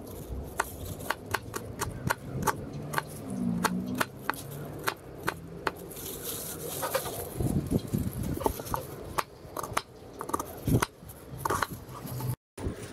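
Chef's knife chopping a red onion on a wooden chopping board: sharp knocks of the blade against the board, about two a second and unevenly spaced.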